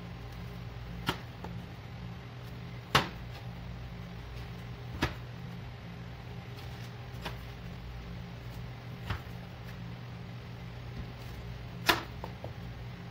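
Metal cake ring molds knocking and clinking as they are handled and set down on a baking tray, five sharp knocks a few seconds apart, over a steady low hum.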